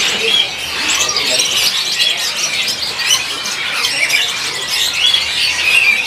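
Many caged songbirds calling at once, overlapping shrill chirps and whistled phrases, among them a cucak cungkok (blue-winged leafbird) singing.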